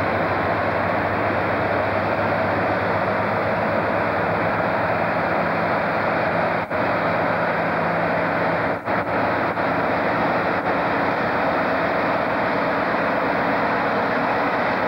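British Rail Class 60 diesel locomotive's eight-cylinder Mirrlees engine running steadily as it hauls a train of tank wagons slowly past, with a low hum under a steady noise. The sound dips out very briefly a few times around the middle.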